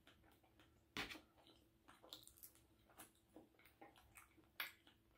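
Faint chewing of a mouthful of French toast, with scattered small wet smacks and clicks; a sharper click about a second in and another near the end.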